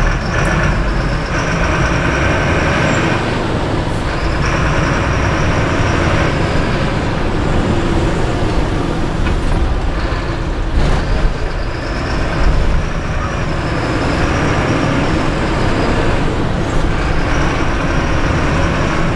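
Mercedes-Benz city bus engine running while the bus drives along, heard inside the cabin from the driver's seat. A high whine comes and goes, and there are a couple of short knocks.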